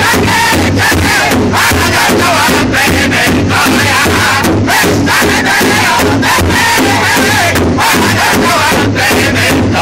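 Powwow drum group: several men singing loudly together while beating a large hide-headed bass drum in unison, a steady even beat under the song.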